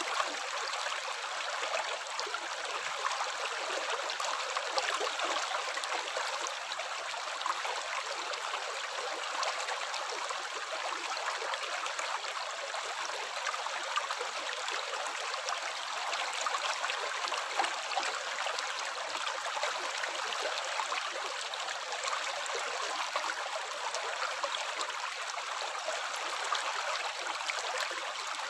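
Water running and trickling steadily, a continuous splashing with no break or change.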